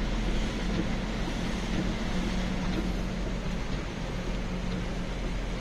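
Steady noise heard inside a moving car: tyres hissing on a wet road under a low, even engine hum.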